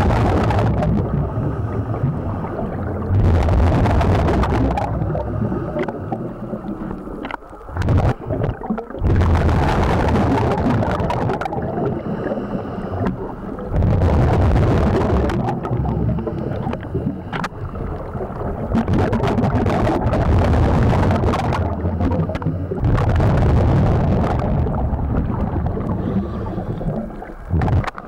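Scuba diver breathing through a regulator underwater: hissing inhales and rumbling, bubbling exhales, swelling and fading every few seconds.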